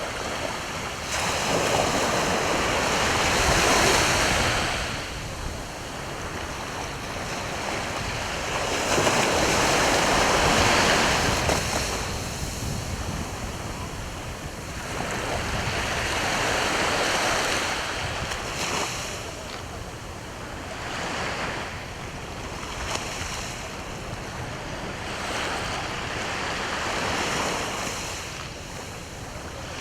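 Sea waves breaking and washing on the shore, swelling and ebbing in surges every several seconds.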